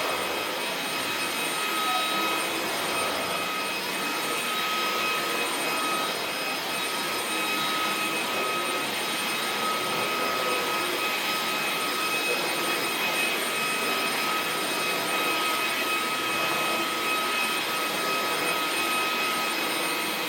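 Eufy HomeVac S11 Reach cordless stick vacuum running steadily, a high motor whine over the rush of air.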